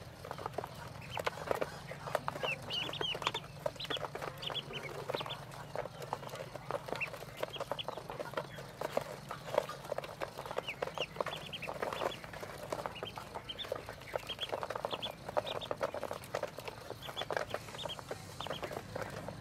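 A brood of ducklings peeping in short high calls, in clusters throughout, while they feed. Their bills click and tap against a feeder of crumble feed.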